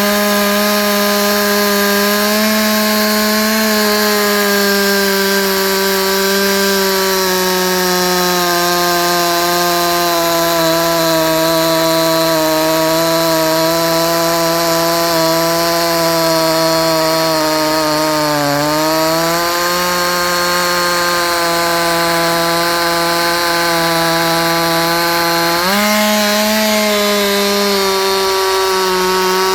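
Chinese two-stroke chainsaw on a 7-tooth rim sprocket, held at full throttle while it cuts through a very hard ironbark log. The engine pitch holds high, sags under load about two-thirds of the way through and recovers, then jumps up near the end.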